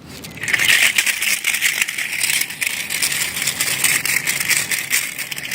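Packaging being handled in an unboxing: a dense, continuous crackling and rattling, like plastic wrap being crinkled, starting about half a second in.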